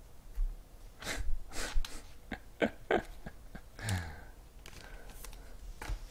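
Trading cards and pack wrappers being handled: a string of brief rustles, swishes and light clicks, with a short breathy sound near the middle.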